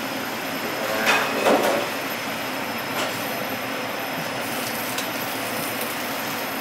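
Steady rushing kitchen noise from a steaming pot, with metal tongs clinking against the stainless steamer tray and plate as steamed dumplings are lifted out; the loudest clinks come about a second in, lighter ticks later.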